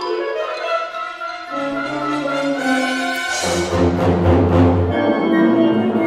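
Wind ensemble playing, alto saxophone among the winds: held chords at first, then about three seconds in the full band comes in louder, with heavy low brass and a splash of high metallic hiss.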